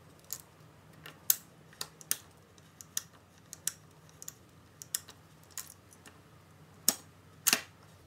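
Small sharp metal clicks from a pick tool working the gear inside a Mercedes W204 electronic steering lock by hand, through a drilled hole, to drive the lock back to its unlocked position. The clicks come unevenly, about two a second, with two louder clicks near the end as the lock unit comes off the steering column.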